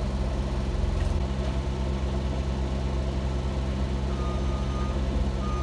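Diesel engines of a mini excavator and a tracked skid steer running steadily, heard from inside the excavator's cab. Near the end, a reversing alarm gives two long beeps as the skid steer backs up.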